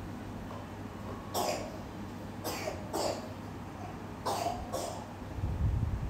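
A person coughing: five short coughs, one on its own and then two pairs. A low rumble follows near the end.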